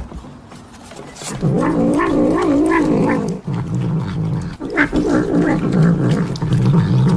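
A cat growling and grumbling while it eats wet food: a low rumbling voice that wavers up and down in pitch. It starts about a second and a half in and goes on almost without a break, with a couple of faint clicks.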